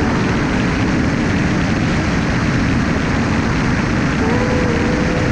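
Light aircraft's engine and propeller droning steadily, heard from on board with airflow noise over the airframe. About four seconds in, a faint wavering voice-like tone joins.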